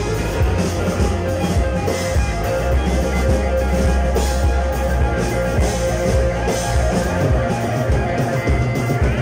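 Live rock band playing: overdriven electric guitars, electric bass and a drum kit with cymbals keeping a steady beat.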